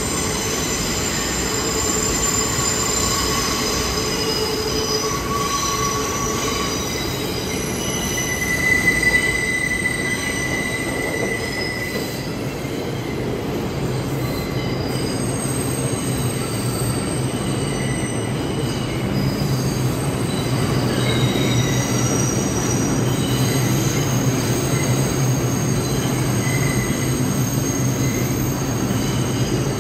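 R142 subway train running along a sharply curved station track, its wheels squealing against the rails in several high pitches that shift and overlap, over a steady rumble of wheels; a low electric motor tone grows stronger about halfway through as the train slows.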